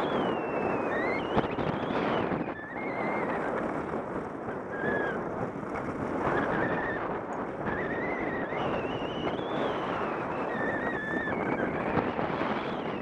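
Wind rushing over the camera microphone while skiing downhill, mixed with the hiss of skis sliding over groomed snow. A thin wavering whistle rises and falls over it several times.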